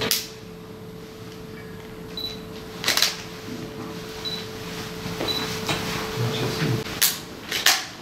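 Room tone with a steady electrical hum, broken by a few sharp clicks or knocks (at the start, about three seconds in, and twice near the end) and faint short high beeps.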